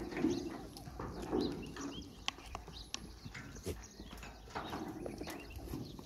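Goats bleating several times, mixed with a few sharp clicks and knocks.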